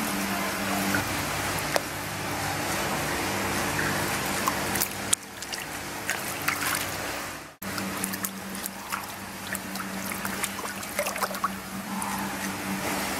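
Shallow pool water sloshing, trickling and dripping as hands handle a wet platypus, with many small splashes and a steady low hum underneath. The sound cuts out for a moment about seven and a half seconds in.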